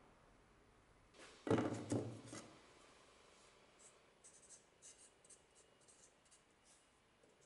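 A knock and brief rattle of the tool being handled on the bench about a second and a half in, then a felt-tip marker writing on a wooden ash handle: a run of short, thin squeaky strokes.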